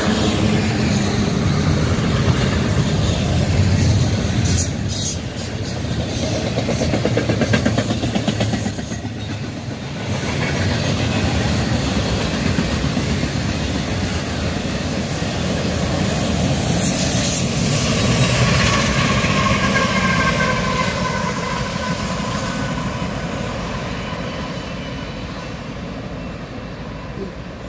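Union Pacific intermodal freight train rolling past, its double-stack container cars and trailer-carrying flatcars giving a steady rumble with wheels clicking over rail joints. The sound fades over the last few seconds as the train moves away.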